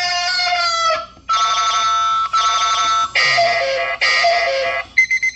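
Digital alarm clock for heavy sleepers sounding its alarm, very loud: a ringtone-like melody of ringing tones in four repeated phrases, switching near the end to short, rapid high beeps.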